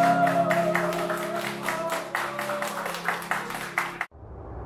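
Two people clapping along in a steady rhythm to the closing bars of a live song: sustained chords with one long held note above them. It all cuts off abruptly about four seconds in, and a rush of noise swells up after.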